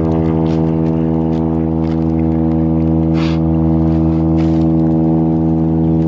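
A steady idling engine hum, loud and unchanging, with a few short soft clicks over it.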